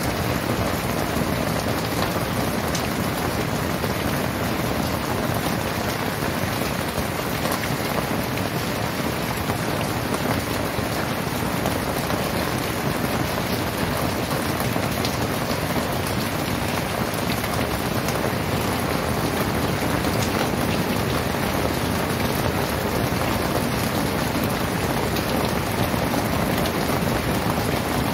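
Heavy downpour of rain, a steady, even hiss with no letup.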